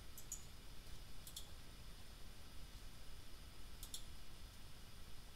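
Computer mouse button clicking three times, each a quick pair of sharp clicks, over a faint low hum.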